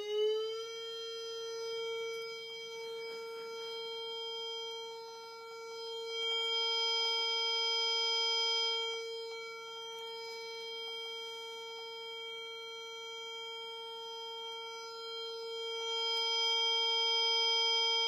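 Recorded Whelen outdoor warning siren alert signal played through a small speaker with a paper cup horn: the tone finishes winding up in the first second, then holds one steady pitch. It swells and fades every few seconds as the speaker is turned by hand.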